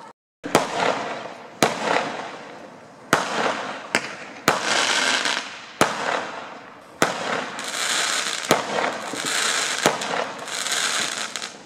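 Fireworks going off: about nine sharp bangs at irregular intervals, each followed by a second or two of crackling as the shells burst.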